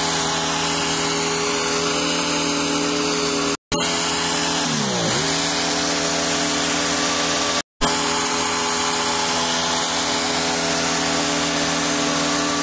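John Deere riding lawn mower engine running steadily. Its pitch dips briefly and recovers about five seconds in. The sound cuts out abruptly for a moment twice.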